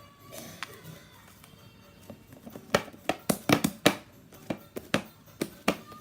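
Fluffy shaving-cream slime being squeezed and stretched by hand, giving a quick run of sharp clicks and pops, most of them in the second half.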